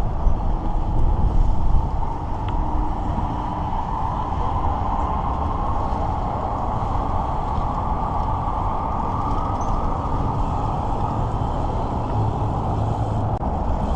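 Steady rumble and hiss of wind and road noise while riding along a street, with no distinct events.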